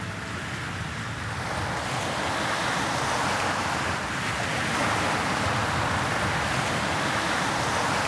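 Small waves washing in over a sandy beach at the shoreline, a steady surf wash that grows a little louder after the first couple of seconds.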